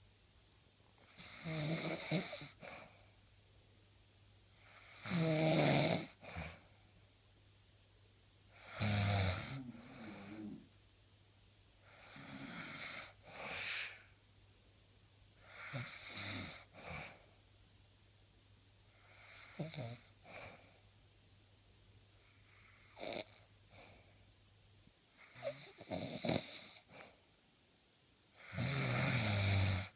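A sleeping person snoring, with a rough snore on each breath every three to four seconds and some breaths louder than others.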